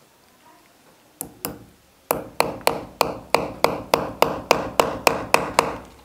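A hammer driving a nail into a cement-plastered wall: two light taps, then a steady run of about a dozen sharp blows, three to four a second. The nail is going into the wall with difficulty.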